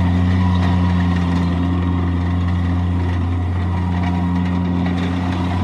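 Bobcat MT52 stand-on mini track loader's diesel engine running at a steady speed, easing off slightly about four seconds in.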